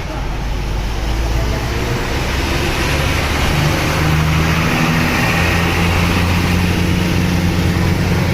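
Bus engine running steadily, a low drone that grows a little louder about a second in.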